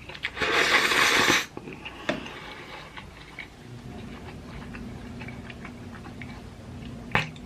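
A loud slurp of ramen noodles lasting about a second, followed by faint mouth clicks and chewing sounds.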